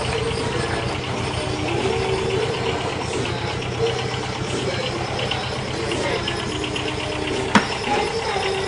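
Takeuchi mini excavator's engine running steadily, with mid-pitched tones that shift as the machine works and a single sharp knock about seven and a half seconds in.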